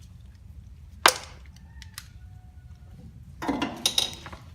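Hand tools being handled at the workbench: a single sharp metal clack about a second in, then a short rattling clatter of metal near the end, like a ratchet and sockets being picked up and fitted.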